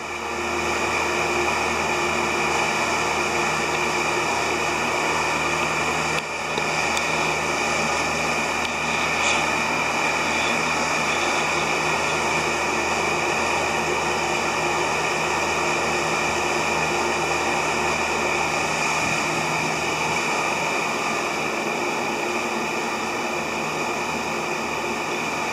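Electric fans running steadily: a constant whirring rush with a thin high whine held on top.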